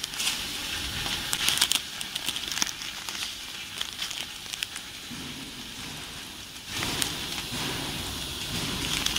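Crinkling and crackling of printed plastic coffee bags being handled and shuffled in a pile, with many small irregular clicks. A low rumble joins about seven seconds in.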